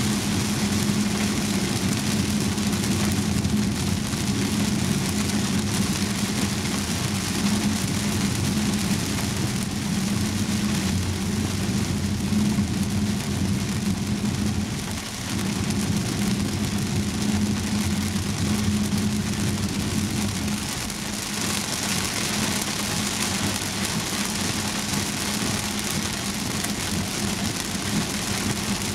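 Heavy rain on a Volvo S90's roof and windshield, heard inside the cabin over the car's steady engine and road drone as it drives on a wet road. About two-thirds of the way through, the low drone eases and the rain hiss grows.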